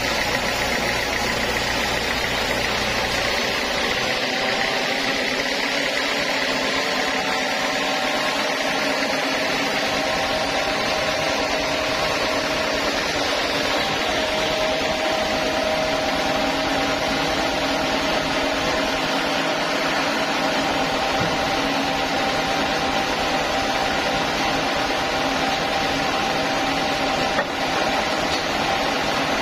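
Band sawmill running and sawing through a large teak slab: a steady machine noise of the motor and the blade in the wood, with a faint steady tone. A low hum drops away about four seconds in.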